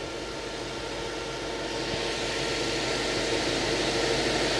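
Subaru WRX's turbocharged flat-four idling with the electric radiator cooling fan running, a steady whooshing noise that grows gradually louder. The fan is on because the engine has reached operating temperature and the thermostat has opened.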